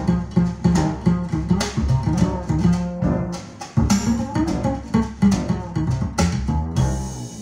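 Jazz-pop recording with a double bass line and guitar played through a pair of Sonus Faber Venere Signature floor-standing loudspeakers, an instrumental passage with no singing.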